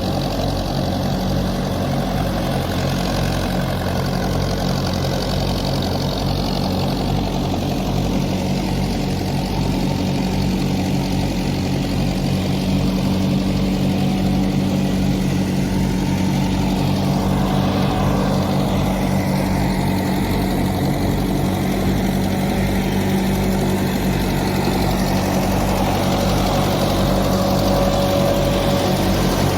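Engine of harvest machinery running steadily at a constant speed, with an even firing pulse.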